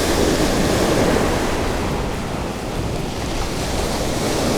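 Big waves crashing onto the beach, a steady wash of surf noise that swells and eases, with strong wind buffeting the microphone.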